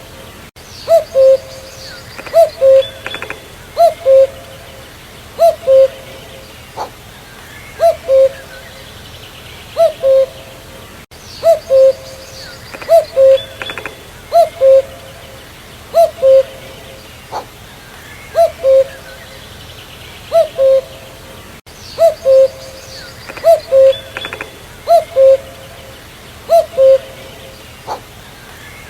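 Common cuckoo (Cuculus canorus) calling its two-note "cu-coo", the second note lower than the first, repeated steadily about every second and a half.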